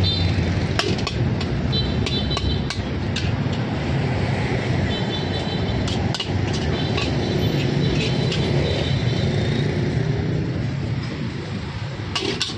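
Metal spatula scraping and knocking against a large steel wok as fried rice is scooped out into a styrofoam box, with many short clanks over a steady low rumble.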